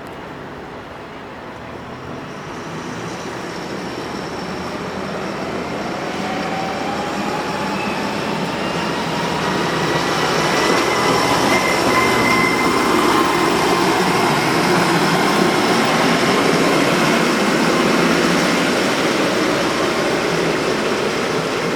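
Heavy machinery or a large vehicle: a dense mechanical rumble with several steady whining tones. It grows louder over about the first ten seconds, then holds and eases a little near the end.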